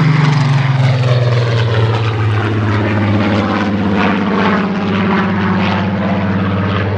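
Spitfire XIV's 37-litre Rolls-Royce Griffon V12 engine in flight. Its note falls in pitch as the aircraft passes during the first second, then holds a steady, slightly wavering note as it flies overhead.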